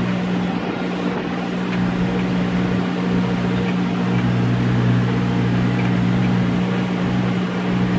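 John Deere 5083E tractor's four-cylinder diesel engine running steadily at a constant pitch.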